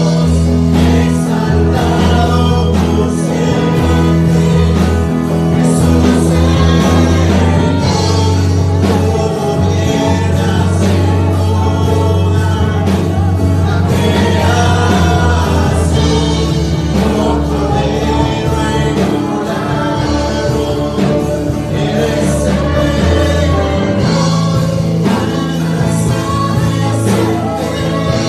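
A girl and a man singing a gospel song into microphones over instrumental accompaniment with sustained bass notes.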